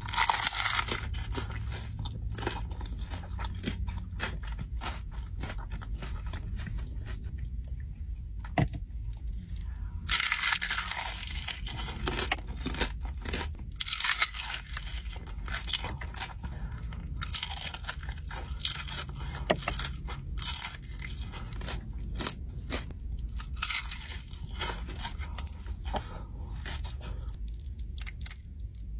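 Close-up biting and chewing of crispy fried chicken: crunches come in bursts, with short pauses between bites.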